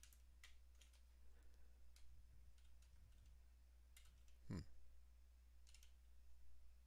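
Faint computer keyboard typing: scattered, irregular key clicks, with one slightly louder click about halfway through.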